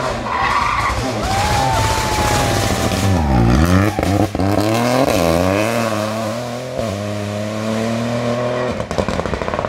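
Rally car engine taking a tight hairpin: the revs drop as it brakes and downshifts into the bend, then climb again in steps through the gears as it accelerates away. A high squeal is held before the turn, and there is a sharp crack about four seconds in.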